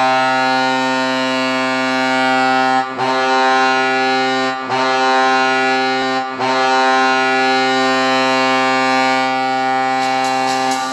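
Colorado Avalanche arena goal horn sounding for a goal: one deep, steady horn tone held in four long blasts separated by three brief breaks, the last blast held longest.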